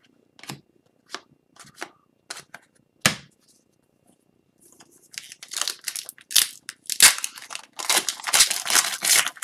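Hockey cards handled on a tabletop in a few light clicks and taps, then from about five seconds in an Upper Deck Series 2 retail pack's wrapper torn open and crinkled in a dense crackle.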